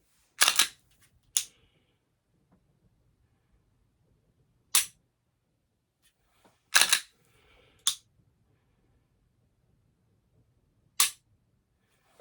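Glock 34 Gen 5 pistol dry-fired: single sharp clicks of the striker releasing on a trigger press, and a few seconds apart quicker clusters of clicks from the slide being racked to reset the trigger.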